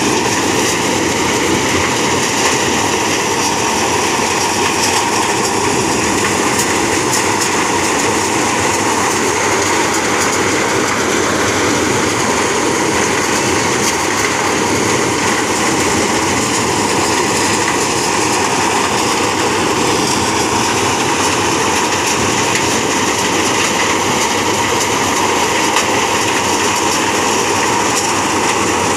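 Tractor-driven maize thresher running steadily, threshing cobs fed into its hopper: a loud, even mechanical din with the tractor engine under it.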